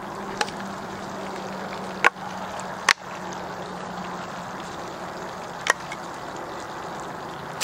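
Chicken frying in a skillet with a steady sizzle, broken by four sharp knocks of a knife blade striking wood, the loudest about two and three seconds in.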